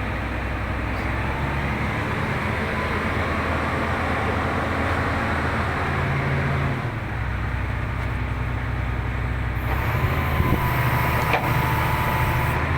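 Hitachi Zaxis 350 excavator's diesel engine running steadily. A hiss joins for about three seconds near the end.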